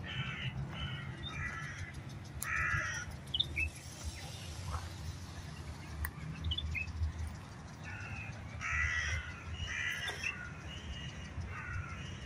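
A bird calling outdoors in short runs of rough, repeated calls, one run at the start and more in the second half, with a few brief high chirps from a smaller bird in between.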